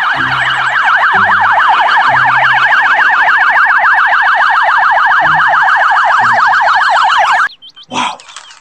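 Police car electronic siren on a fast yelp, its pitch sweeping rapidly up and down about four times a second. It cuts off suddenly near the end.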